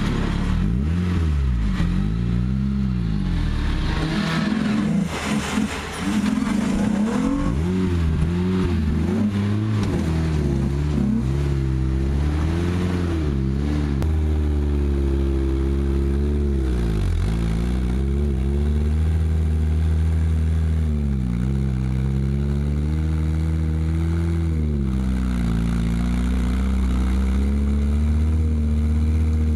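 Off-road 4x4's engine revving up and down over and over under varying throttle, as when working a vehicle over rough terrain. There is a noisier stretch of clatter about five seconds in.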